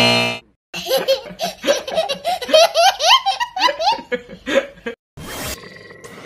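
A buzzer sounds for about half a second at the start. Then a baby laughs hard for about four seconds in a run of high, rising giggles. Near the end a short swish comes in, followed by faint electronic beeping.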